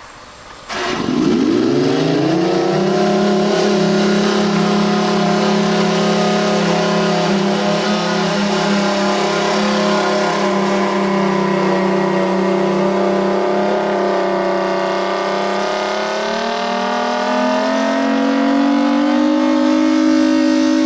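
Outdoor tornado warning siren starting up about a second in. Its pitch sweeps up over about two seconds, then holds as a loud, steady chord of several tones, rising slightly near the end.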